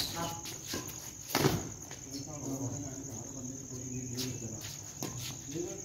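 Crickets trilling steadily and high-pitched throughout. About a second and a half in comes a sharp smack, a badminton racket striking the shuttlecock, with a few fainter knocks later.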